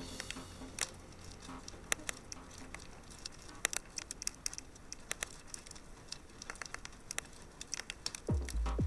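Fire crackling: irregular sharp snaps and pops over a faint hiss. Near the end, an electronic music beat of deep kick drums comes in, about two a second.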